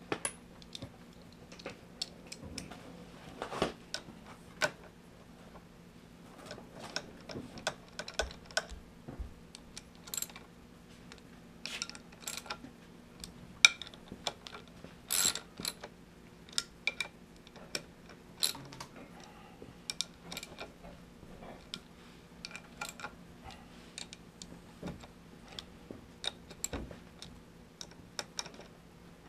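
Ratchet wrench clicking in short runs, with metal tools clinking, as bolts are tightened down by hand: scattered sharp clicks at an uneven pace.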